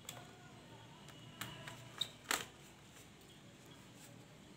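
A few light clicks and taps, the sharpest just after two seconds in, from a small screwdriver and metal parts as laptop heat sink screws are being undone.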